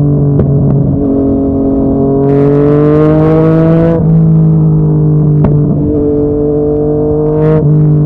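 Yamaha MT-09's inline three-cylinder engine through a Yoshimura R55 slip-on exhaust, pulling under throttle while riding. The pitch rises for about two seconds with a rush of hiss, drops suddenly at a gear change, runs steady, then climbs briefly and drops again near the end, with a few sharp crackles.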